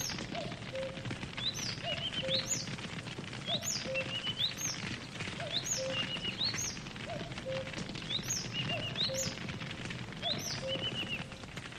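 Campfire crackling with a steady hiss, under a bird singing a short chirping phrase over and over, about once a second.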